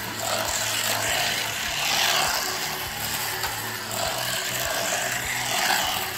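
Hot Wheels electric slot cars whirring around the plastic track, the whir swelling twice as the cars speed along, over a steady low hum.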